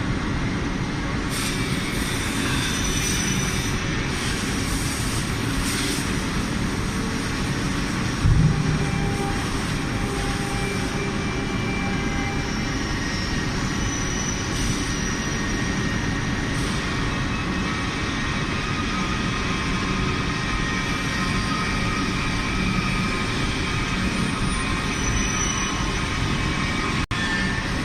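CNC stretch bending machine running with a steady mechanical hum and noise, with one short heavy thump about eight seconds in.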